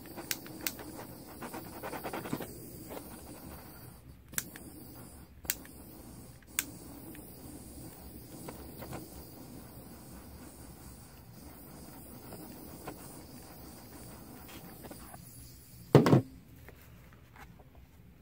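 Small handheld butane torch running with a steady hiss, passed over wet poured acrylic paint to bring up cells, with a few sharp clicks in the first several seconds. Near the end there is one brief, loud knock.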